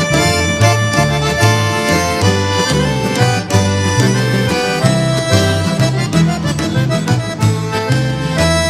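Instrumental break of a Russian popular song: accordion playing the melody in held notes over a steady, bouncing bass line, with no singing.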